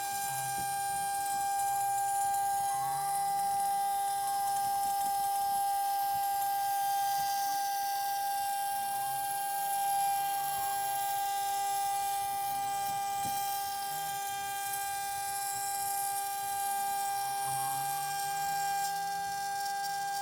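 CNC 6040 router's spindle whining at one steady high pitch while milling aluminium, with a hiss of cutting over it. A fainter whine glides up and down every few seconds as the machine moves.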